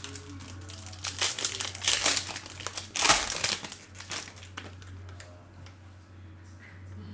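Plastic wrapping of a trading-card box being torn and crinkled as it is opened, loudest about three seconds in, then tapering off, over a steady low hum.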